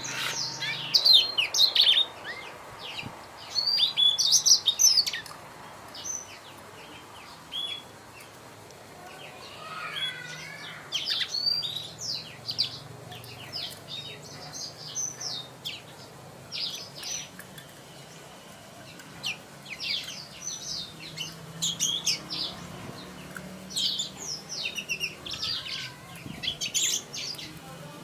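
Young blackthroat (black-throated canary) singing in phrases of quick, high chirps and trills, with short pauses between phrases.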